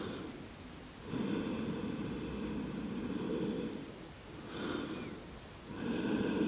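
A person's slow, deep breathing, audible through the microphone. One long breath lasts about three seconds starting about a second in, and another begins near the end.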